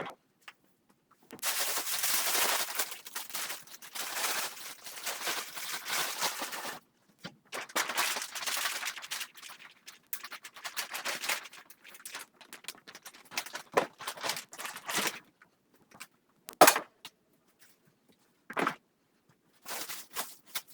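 Kitchen cleanup noise: long spells of crackly scrubbing and rustling, then a few separate sharp knocks near the end.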